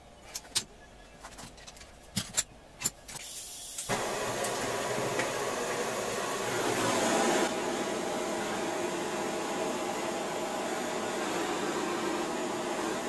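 A few sharp clicks, then about four seconds in a small gas torch lights and hisses steadily while it heats the new wire terminal on the starter motor's field lead.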